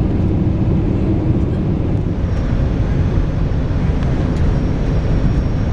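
Steady engine and airflow noise inside the passenger cabin of a Boeing 747-400 airliner, a dense low rumble with no distinct events.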